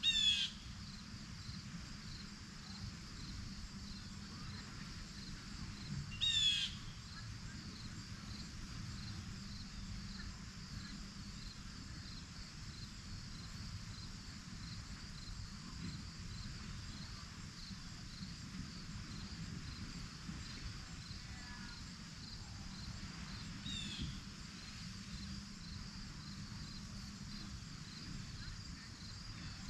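A steady evening chorus of insects trilling, broken three times by a bird's short harsh caw-like call: loud at the start and about six seconds in, fainter near 24 seconds. A low steady rumble runs underneath.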